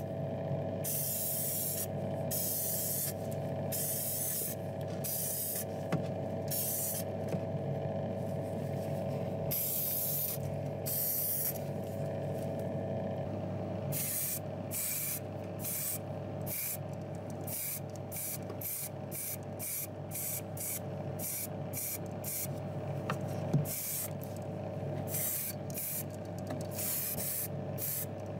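Paint spraying in many short hissing bursts over a steady low hum, as a small die-cast metal part is given a coat of grey primer and then red paint. The bursts come quicker and shorter in the second half.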